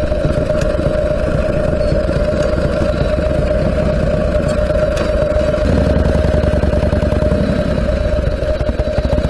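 Harley-Davidson Panhead V-twin motorcycle engine running on the road, its firing pulses steady throughout. The engine grows louder for a few seconds, from about six seconds in.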